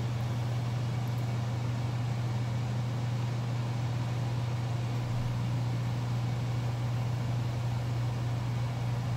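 Steady low mechanical hum with a faint even hiss, unchanging throughout, as from a running household appliance such as a fan or air conditioner.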